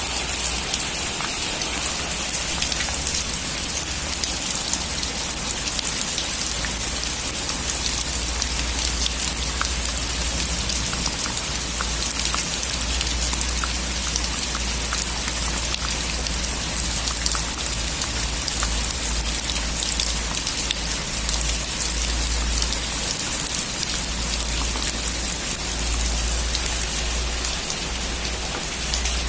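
Heavy rain on a metal roof: a dense, steady rush with many individual drops tapping on the sheet metal.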